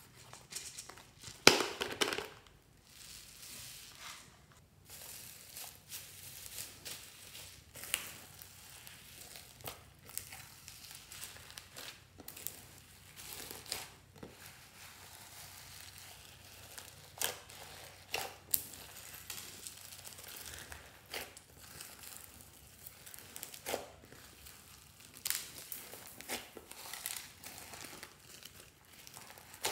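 Foam beads being tipped from a plastic bottle into a glass tray, a loud rustling burst about two seconds in. After that, slime being folded and kneaded through the beads, with irregular small crackles and crunches.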